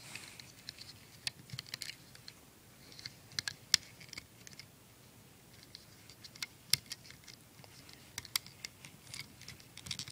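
Rubber loom bands being stretched and snapped onto the pegs of a plastic bracelet loom, with fingers tapping the plastic: small sharp clicks and snaps in irregular clusters.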